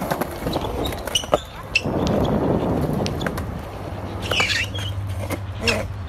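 Skateboard wheels rolling over concrete, with sharp clicks and knocks from the board, and a short high chirp about two-thirds of the way through.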